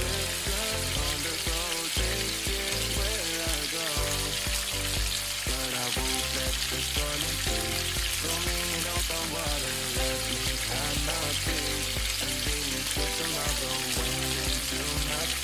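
Pork belly slices sizzling in a hot pot, frying in their own fat, with a steady crackling hiss. Background pop music with a steady beat plays over it.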